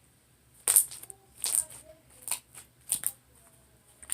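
Clicky slime being pressed and stretched by hand, giving a series of sharp clicking pops, about six of them spread over a few seconds.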